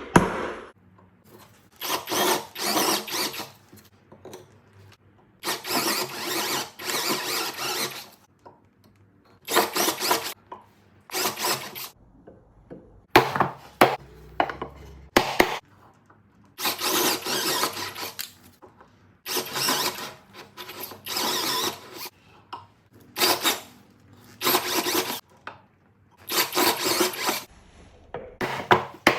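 Tapered reamer cutting a leg mortise in wood, in repeated rasping bursts of one to two and a half seconds with short pauses between them.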